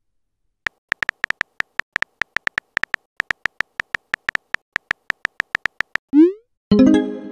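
Phone on-screen keyboard tap clicks, one per letter, about five or six a second, as a text message is typed. Near the end comes a short rising swoop as the message is sent, then a bright pitched tone.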